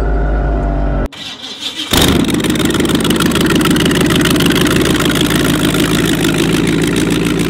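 Supercharged engine of a drag race boat running loud and steady under power as the boat pulls away. It comes in abruptly about two seconds in, after a brief dip in level.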